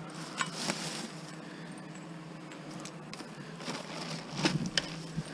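Scattered light clicks and rustles of curbside scrap being handled, with sharper clicks about half a second in and a cluster near the end, over a faint steady hum.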